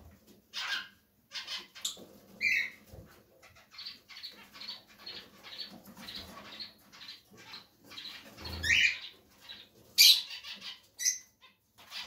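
Caged lovebirds chirping: short high calls, with a run of quick, evenly spaced chirps in the middle and several louder calls near the end.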